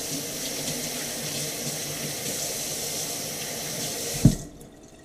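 Kitchen tap running steadily into a sink while hands are washed under it, then shut off about four seconds in with a single loud knock.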